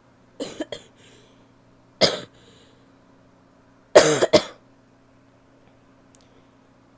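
A woman coughing in separate bouts: a quick run of coughs near the start, a single cough about two seconds in, and a louder double cough about four seconds in.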